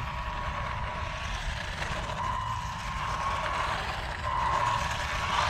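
WLToys 144001 1/14-scale RC buggy's brushed electric motor and drivetrain whining as it runs, the whine rising with the throttle twice, about halfway and again near the end, over a rough gear and drive rumble.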